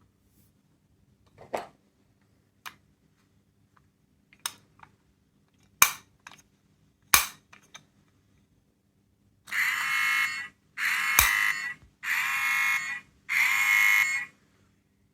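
A small electronic sound-making capsule toy: a few sharp clicks, then four steady buzzer-like electronic tones of about a second each.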